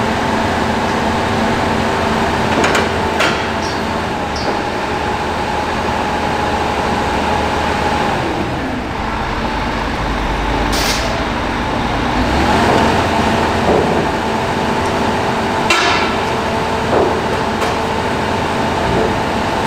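Large crawler excavator running steadily with a constant hum, with a few sharp metallic clanks and knocks, about three seconds in, near the middle and again past the middle.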